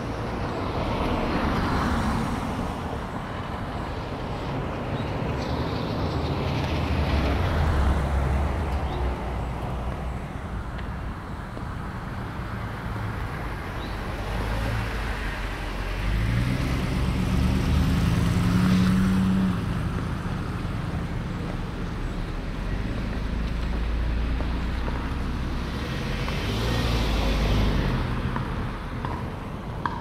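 Road traffic: several cars passing one after another, engine and tyre noise swelling and fading, with the loudest pass about 18 seconds in carrying a low engine hum.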